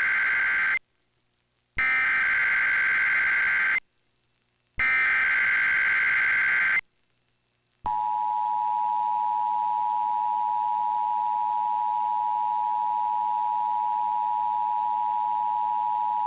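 Emergency Alert System test tones. The tail of one SAME digital header burst is followed by two more identical two-second data bursts about a second apart. Then the steady two-tone EAS attention signal plays for about eight and a half seconds and cuts off at the end.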